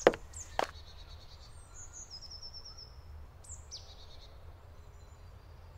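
Woodland birds calling: a short rapid high trill about two seconds in, then a few high chirps, over a low steady rumble. Two sharp knocks sound right at the start.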